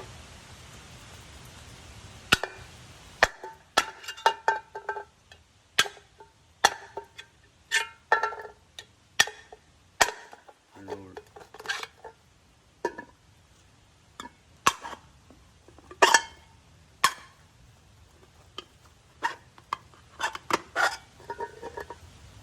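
Krate Tactical "The Ghost" double-action out-the-front automatic knife firing its blade out and snapping it back again and again. Each stroke is a sharp metallic click with a short ring, about twenty in all at uneven intervals, some in quick pairs.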